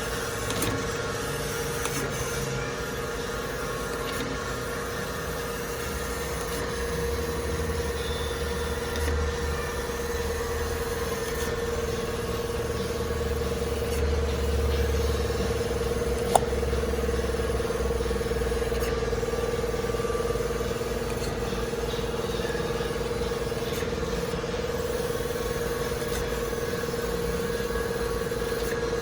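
Kent KGS-300AHD hydraulic surface grinder running under power, a steady machine hum over a low rumble that swells and eases in the middle. A single sharp click comes a little past halfway.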